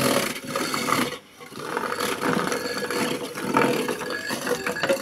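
Electric ice shaver running, its blade grinding a frozen block of chocolate ice-cream mix into shavings over the steady hum of its motor. The grinding drops off briefly just after a second in, then resumes.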